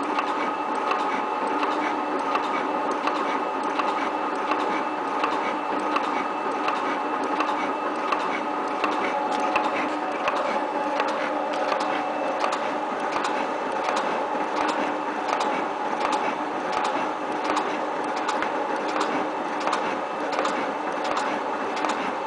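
7305T metal-working shaper running, a steady mechanical hum with several steady tones and a repeated clicking.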